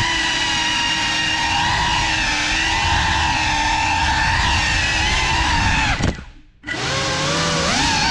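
GEPRC Cinelog35 FPV drone's motors whining at high pitch, the whine rising and falling with the throttle. About six seconds in the sound drops away almost to nothing for half a second, then returns.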